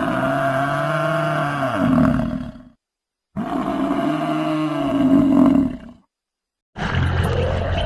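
A large animal calling twice, each call two to three seconds long with a low pitch that rises and falls, the two calls nearly identical and separated by a short silence. A different sound cuts in near the end.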